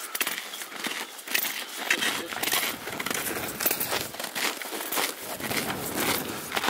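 Boots crunching on packed snow as people walk uphill, an uneven run of crisp steps mixed with clothing rustle.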